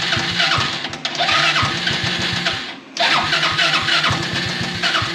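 Buggy engine being cranked and coughing into life on a cold start after standing for two weeks. Its rapid pulsing cuts out briefly about three seconds in, then picks up again. The owner says it starts very poorly when cold.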